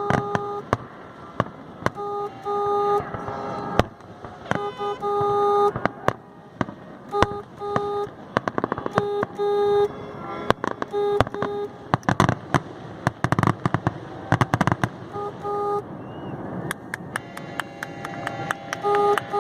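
Fireworks finale: many sharp bangs and crackles, coming thickest about halfway through. A horn honks over them in short repeated blasts, on and off throughout.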